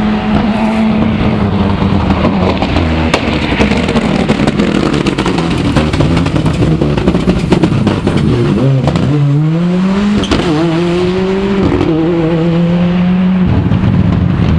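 Ford Escort RS Cosworth rally car's turbocharged four-cylinder engine running hard at steady revs. About eight and a half seconds in the revs drop and then climb as it accelerates away, with sharp pops and cracks from its anti-lag system.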